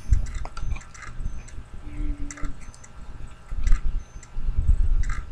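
Scattered light clicks and ticks over irregular low rumbling noise, with a few brief faint tones.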